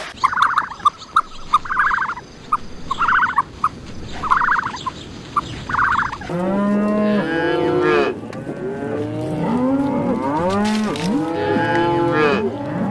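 A run of short, high calls about half a second apart, then from about halfway several cattle mooing, long overlapping calls that rise and fall in pitch.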